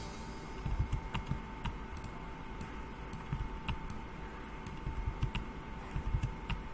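Computer keyboard being typed on: irregular clicks and soft knocks of keystrokes, over a faint steady hum.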